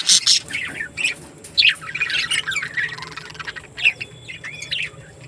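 Budgerigars chattering: a dense, overlapping run of quick chirps and squawks.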